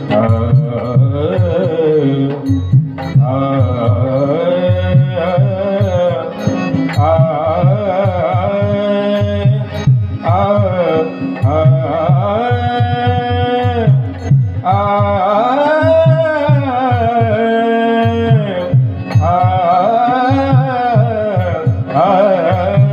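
Marathi abhang bhajan music: a voice sings long, ornamented held notes without clear words over a steady drone, with pakhvaj drum strokes beating throughout.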